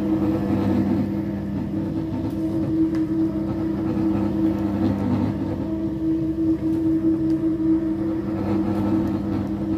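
Single-disc rotary floor machine running with a steady, even hum as its pad polishes a marble floor.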